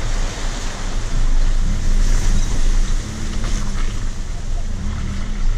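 Chevy Colorado ZR2 pickup's engine running as it drives slowly over dirt, a steady low hum under wind rushing across the hood-mounted camera's microphone.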